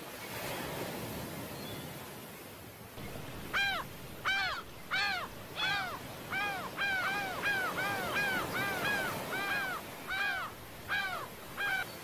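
A bird calling in a long series of about fifteen loud, clear, arching calls, starting about three and a half seconds in. A steady hiss of surf and wind lies underneath.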